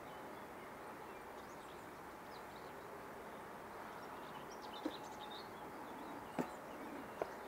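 Steady hum of a honeybee colony at an open hive, with birds chirping now and then. A few sharp clicks come in the second half, the loudest about six seconds in, as the beekeeping gear is handled.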